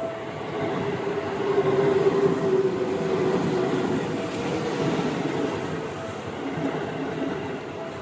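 A Seibu Ikebukuro Line train passing over a level crossing, its rumble rising about a second in and staying loud. A level crossing alarm rings on, a repeating high tone over the train noise.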